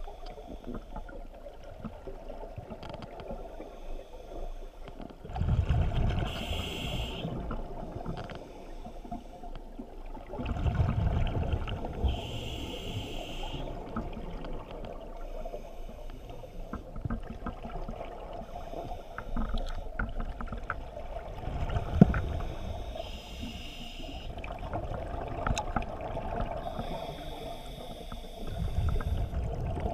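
Scuba diver breathing underwater through a regulator: several slow breaths, each exhale a rushing burst of bubbles about every five to six seconds.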